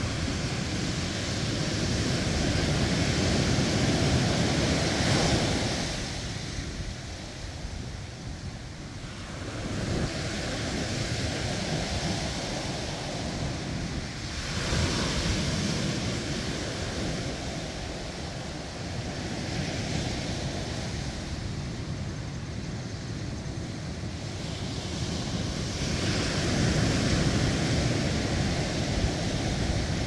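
Surf breaking and washing up a sandy beach. The rushing noise swells and ebbs every few seconds as each wave comes in, and is loudest near the start and near the end.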